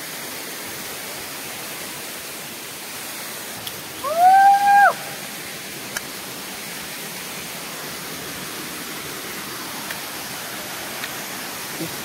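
Steady rush of a waterfall pouring into a rocky gorge. About four seconds in, a person lets out one loud shout that rises in pitch and is held for under a second.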